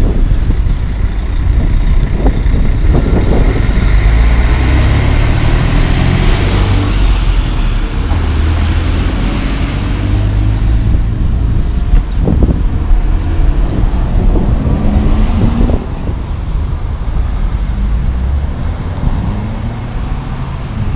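Road traffic passing close by: a diesel tandem dump truck moving off, then cars going past, with low engine rumble and tyre noise that swells and fades as each vehicle passes.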